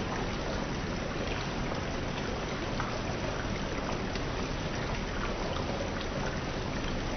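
Water running in fountains: a steady, even splashing and trickling with no break.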